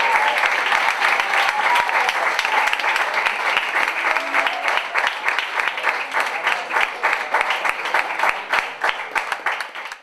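Audience applauding. The clapping is dense at first, then thins to scattered, separate claps and fades out at the end.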